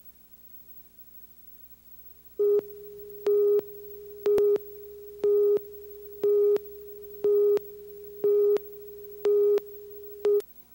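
Steady electronic test tone with louder beeps pulsing on it about once a second. It starts about two seconds in and cuts off suddenly near the end: the line-up tone that accompanies a commercial's slate card.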